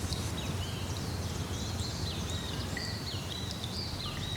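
Many small birds chirping over one another, quick rising and falling chirps repeating throughout, over a steady low rumble; it cuts in suddenly out of silence.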